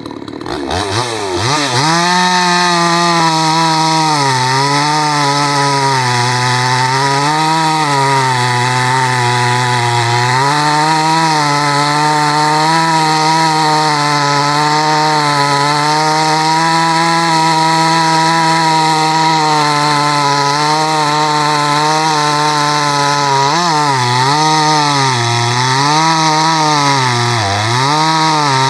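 62cc Chinese chainsaw revved up to full throttle about a second in and held at high revs while cutting into wood, its pitch dipping again and again as the chain bites under load, with several deeper dips near the end.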